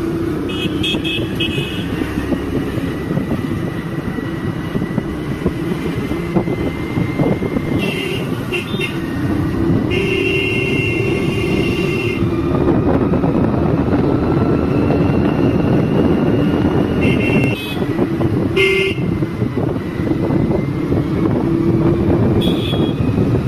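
A motor scooter running along a hill road, with steady engine and road noise. Vehicle horns honk in short toots several times, with one longer honk about ten seconds in.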